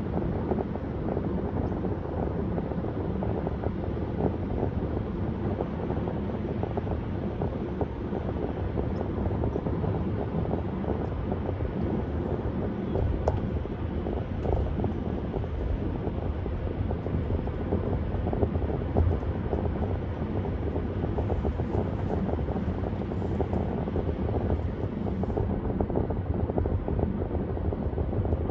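A car driving at a steady speed on a highway: continuous, even road and wind noise.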